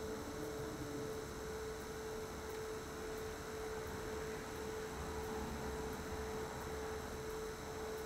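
Electric pottery wheel running, its motor giving a steady hum with one constant tone.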